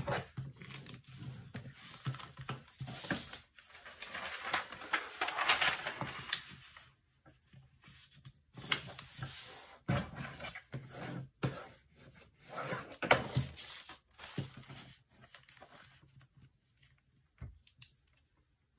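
Origami paper being handled and folded against a cutting mat: irregular rustling and crinkling of the sheets, with sharp clicks and taps as creases are pressed and paper is set down.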